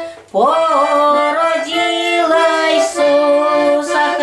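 A woman's voice singing a slow Christmas carol in long held notes. There is a short break just after the start, then the next phrase slides up in.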